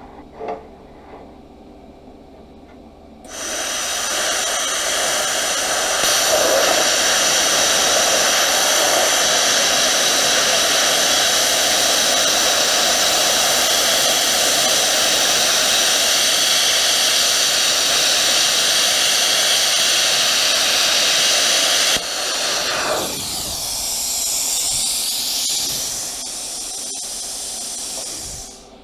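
Plasma cutter arc hissing loudly and steadily as it cuts 1/4-inch steel plate, starting about three seconds in. The cut is not going all the way through the plate, with sparks rooster-tailing off to the side instead of blowing out the bottom. After about twenty-two seconds the arc stops and a softer air hiss carries on briefly before cutting off near the end.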